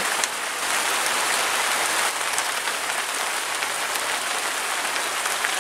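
Rain falling steadily: an even hiss with a few faint taps of single drops.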